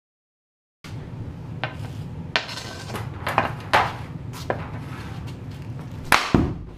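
Hockey stick blade clacking against a puck and plastic shooting pad several times as the puck is set up, then a slap shot near the end: two loud cracks in quick succession as the stick slaps the pad and drives the puck.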